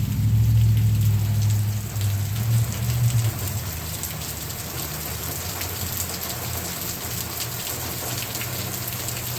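Heavy rain falling steadily, with many small drop impacts on surfaces. A low hum is loud for the first three seconds or so, then fades out, leaving only the rain.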